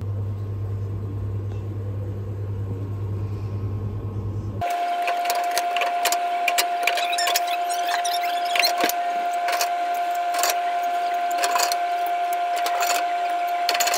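Vending machine being restocked with drink cans. It opens with a steady low hum. About four and a half seconds in, the sound changes to a steady high whine over rapid, dense clinks and clatters of aluminium cans against one another and the machine's metal can columns.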